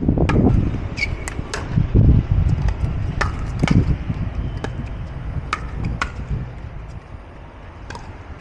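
Pickleball paddles hitting a hollow plastic ball in a rally: sharp pops at irregular intervals, some fainter ones from neighbouring courts. A low rumble runs underneath, loudest near the start and about two seconds in.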